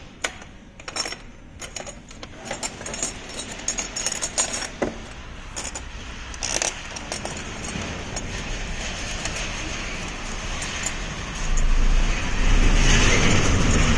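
Metal clicks and clinks as chrome luggage-rack brackets are handled and fitted under a motorcycle top case. From about eight seconds in, a steady rushing noise with a low rumble builds and becomes the loudest sound near the end.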